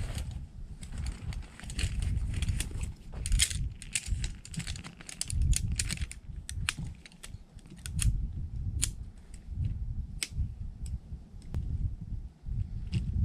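Metal poles of a folding camp chair clicking and clacking as the frame is unfolded and the pole sections are snapped together, dense at first and more scattered in the second half, over a low rumble.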